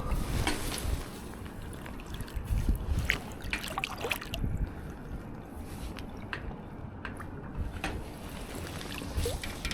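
Water trickling and sloshing lightly, with scattered small clicks and knocks.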